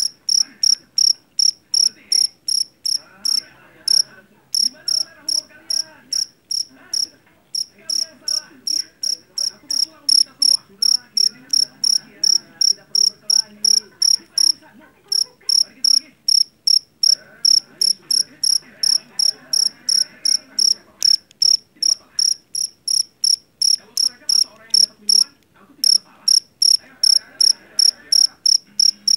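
Jangkrik jeliteng, a black field cricket, singing loud, shrill chirps at about three a second, with a few brief pauses.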